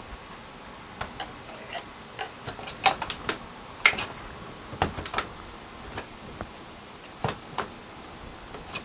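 Hammer tapping on a steel van roof support beam: a string of irregular light taps with a few sharper strikes about three and four seconds in, knocking the beam loose from its drilled-out spot welds.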